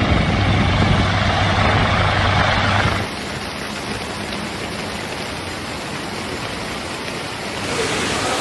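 An engine running steadily with a low hum over a rushing noise. About three seconds in it cuts abruptly to a quieter, even rushing noise.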